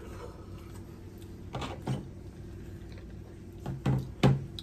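Plastic spoons knocking and scraping against plastic Jell-O cups as the Jell-O is scooped out: a few short clicks and knocks, the loudest near the end.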